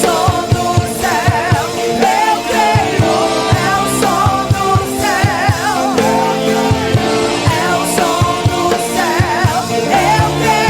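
Christian worship music: a singer's wavering melodic line over sustained chords and a steady drum beat.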